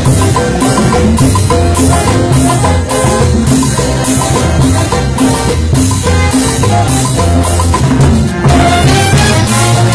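Festive band music with drums, a steady beat and a bass line.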